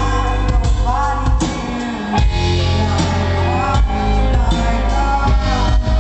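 A rock band playing a song live, with a lead vocal over electric guitar, bass and drums.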